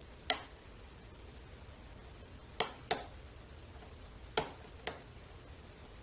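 Five sharp, isolated metallic clicks from a lock pick and tension wrench working in the keyway of a Western Electric 30C lock: one, then two close pairs.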